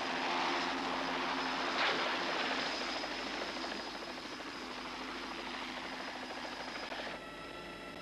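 Helicopter hovering low, its rotor chopping over a steady engine whine. About seven seconds in the rushing noise drops away, leaving the whine steadier.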